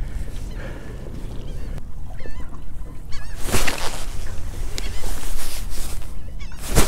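Wind rumbling on the microphone, with a few short wavering bird calls about two seconds in, and two sharp knocks, one midway and one near the end.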